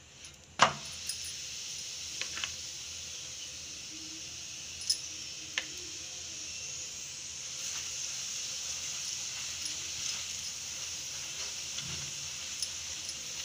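Oil sizzling on a lachha paratha cooking on a hot tawa, a steady hiss that starts with a sharp click about half a second in as the oil goes on. A few light taps of the steel spoon and spatula on the pan.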